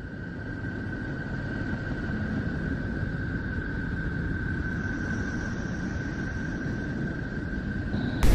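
A NASA recording of a planet's electromagnetic emissions converted into audible sound. It is a steady low rumbling hiss with one high, held tone. It fades in over the first second and cuts off suddenly near the end.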